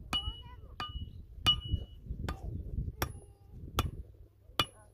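Steady hammering on metal: seven blows at an even pace, about three-quarters of a second apart, each with a short, high metallic ring.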